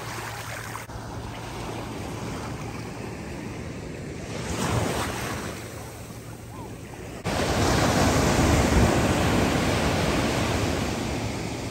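Ocean surf washing on a beach, with wind buffeting the microphone. The rush of the waves swells about five seconds in, then jumps abruptly louder about seven seconds in and slowly eases off.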